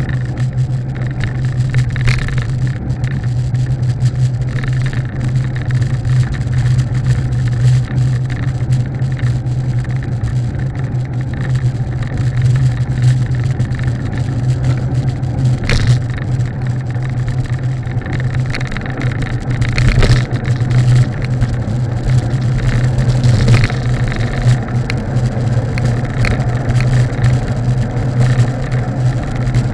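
Steady road and wind noise from a vehicle travelling at speed down a paved road, with a constant low hum and a few brief rattles.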